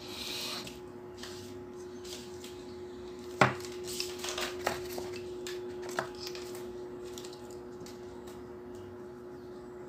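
A ruler being handled and laid down on paper over a table: one sharp knock about three and a half seconds in, then a few lighter taps and rubs, over a steady low hum.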